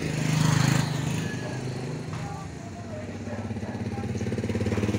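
A small engine running with a steady pulsing hum, with a louder rush of noise about half a second in and the engine growing louder over the last couple of seconds.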